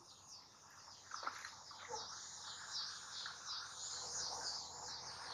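Faint outdoor chirping of birds and insects: a high, evenly repeating chirp with a few short, falling bird calls about a second and two seconds in.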